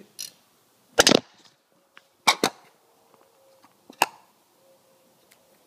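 Sharp clicks and knocks of hard plastic parts of a snap-fit model airliner as a horizontal stabilizer is worked into the tail: a loud knock about a second in, then several lighter clicks, with a final one about four seconds in.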